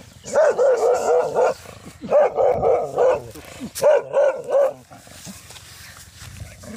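Dog barking in three bursts of quick, repeated barks, falling quiet about five seconds in.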